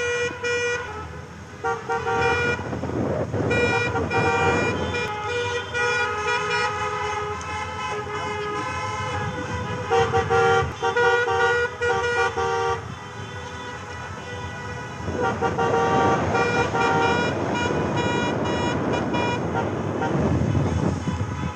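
Several car horns honking on and off in long held blasts at different pitches, overlapping one another, over road noise.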